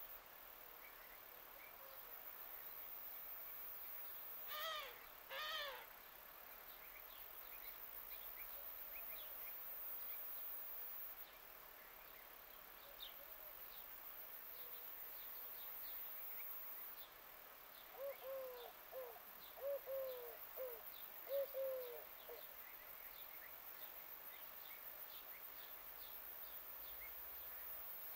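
Birds calling outdoors: faint, scattered high chirps throughout, two louder calls about five seconds in, and a run of short, low, hoot-like calls near the middle to end.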